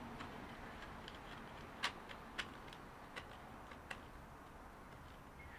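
A few light, irregular clicks as a plastic motorcycle handguard and its mounting hardware are handled against the handlebar. The loudest is about two seconds in, with three fainter ones spread over the next two seconds.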